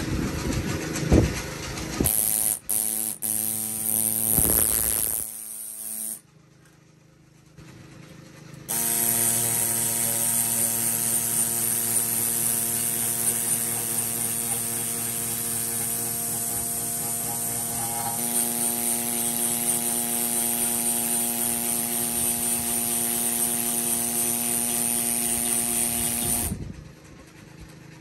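Pneumatic air scraper buzzing against a ship's air horn, scraping off paint softened by chemical stripper, with a hiss of exhaust air. It runs briefly, stops for a couple of seconds, then runs steadily for most of the rest before cutting off near the end. It works, but slowly.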